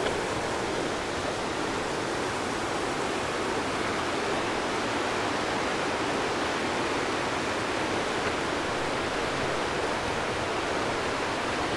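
The Gray Wolf River rushing: a steady, even roar of fast-flowing water.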